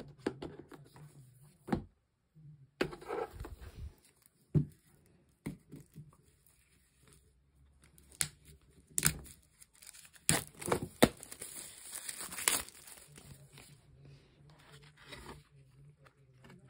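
Clear plastic wrapping being torn and crinkled off board-game components, mixed with scattered taps and scrapes of cardboard and plastic pieces being handled. The rustling is loudest and busiest around the middle.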